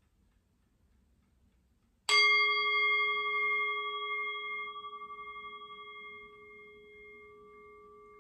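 A meditation bell struck once about two seconds in, ringing with several clear tones that fade slowly over the following seconds. It sounds the close of a guided meditation.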